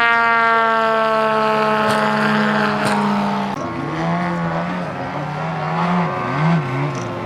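Model airplane engine running, a strong steady note that slowly drops in pitch; about three and a half seconds in it gives way abruptly to a lower engine note that rises and falls over and over, as the throttle is worked.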